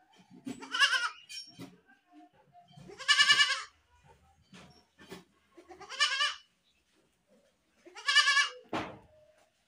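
A goat bleating four times, about every two and a half seconds, each call a short, wavering cry.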